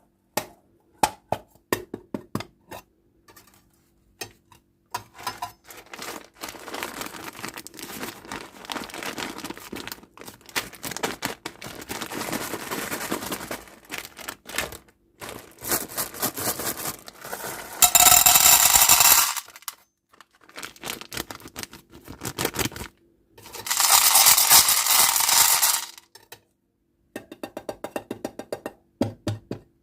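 Candy and its packaging being handled: many small sharp clicks and clinks of hard pieces, with stretches of rustling and crinkling. Two louder bursts of crinkling noise come a little past the middle.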